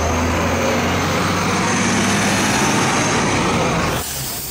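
A tour bus's engine runs close by as the bus pulls past. Its low drone fades within the first second into steady street traffic noise, which drops sharply near the end.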